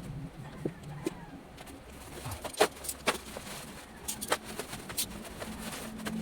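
Scattered sharp clicks and knocks of parcel packaging and battery cells being handled, the loudest about two and a half seconds in, with a dove cooing low in the background.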